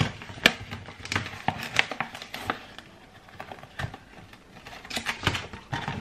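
A plastic scoop and a packet of powdered mug cake mix being handled while scooping: a string of sharp clicks and light rustling.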